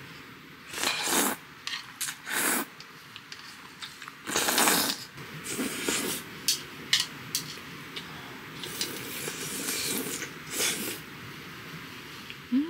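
A person noisily slurping and sucking up the last mouthfuls of jjajangmyeon (black-bean noodles) in a series of short slurps, the longest about halfway through, with a few light clicks of metal chopsticks against an enamel bowl.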